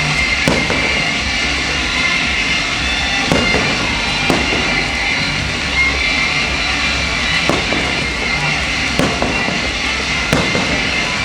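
Fireworks display: about half a dozen firework bursts go off at irregular intervals over loud music played for the show.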